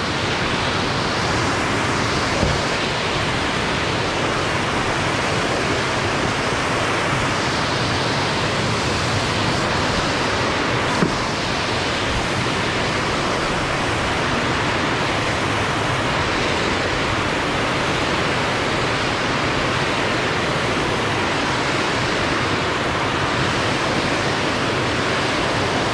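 Whitewater rushing and foaming below a footbridge: a loud, steady roar of water. A single brief knock about eleven seconds in.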